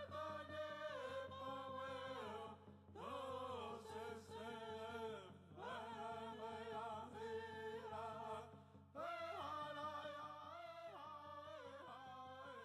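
Background music with singing: a voice sings long held and gliding notes in phrases, pausing briefly about every three seconds, over a steady low hum.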